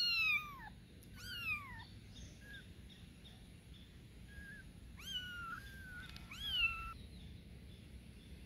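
Young kittens mewing for their mother: about six thin, high-pitched mews, each sliding down in pitch, spread over the first seven seconds, and then a pause.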